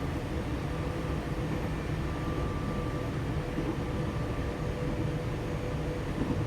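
Electric commuter train running, heard from inside the carriage: a steady low rumble with a faint steady hum.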